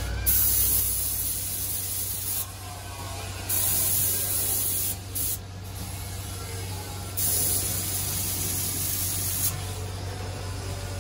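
Gravity-feed air spray gun spraying paint in four hissing bursts: two of about two seconds, one short blip, and one more about two seconds long near the end. A steady low hum runs underneath.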